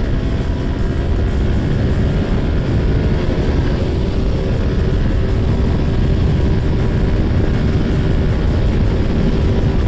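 Yamaha R15 V2.0's single-cylinder engine running hard at highway speed as the bike climbs from about 100 to 120 km/h, heard under heavy wind noise on the microphone.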